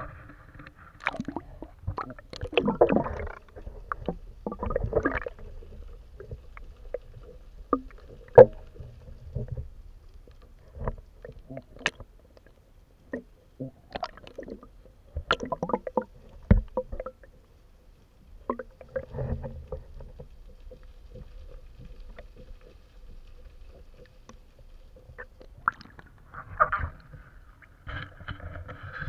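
Water splashing and sloshing against a plastic Hobie Outback kayak hull, with irregular sharp knocks and clicks, while a fish is brought alongside and handled.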